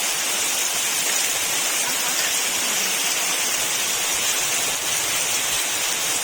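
Very heavy rain falling on trees, a dense, steady hiss with no breaks.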